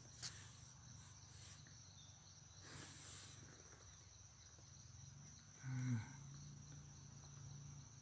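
Faint, steady high-pitched chirring of crickets or other insects. Two brief rustles come near the start and about three seconds in, and a short low grunt-like sound comes near six seconds in.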